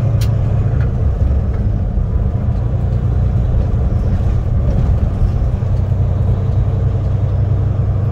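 Semi-truck's diesel engine and road noise heard from inside the cab while driving, a steady low drone.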